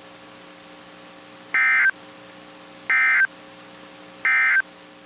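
Emergency Alert System end-of-message code: three short, identical bursts of warbling data tones, about a second and a half apart, marking the end of the broadcast warning. A faint steady hum runs underneath.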